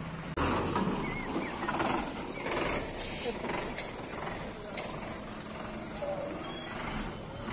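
Truck engine running at low revs, with indistinct voices in the background.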